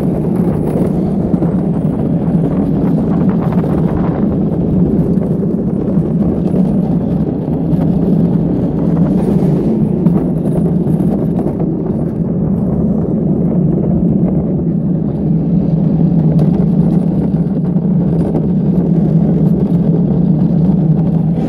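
Wheels of a gravity luge cart rolling fast down a paved track, a loud steady rumble.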